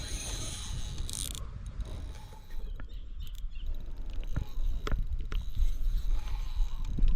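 Fishing reel being cranked with a ratcheting, clicking mechanism and scattered sharp clicks over low handling rumble, while a large hooked fish is fought on the line.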